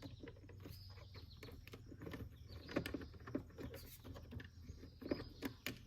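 Faint, scattered clicks and taps of the plastic parts of a Roomba brush roll being handled.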